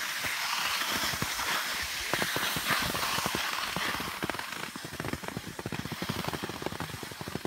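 Skis sliding over packed snow while being towed up a drag-lift track: a steady scraping hiss with dense, irregular crackling clicks.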